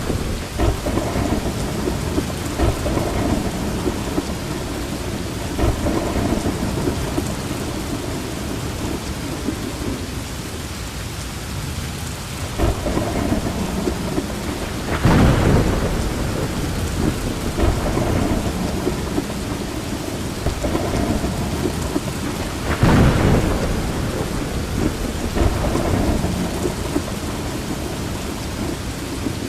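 Steady rain falling, with low thunder rumbling through it; the thunder swells louder about halfway through and again about three quarters of the way through.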